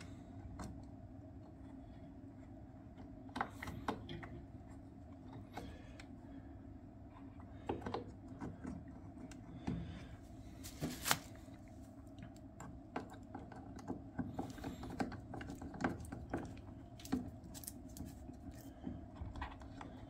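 Scattered small clicks and scrapes of a furnace air pressure switch being fitted against its bracket and its long mounting screw being turned in by hand, over a faint steady hum.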